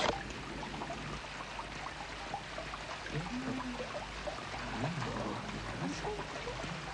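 Steady splashing of water falling in a stone fountain, with a few faint voices in the background.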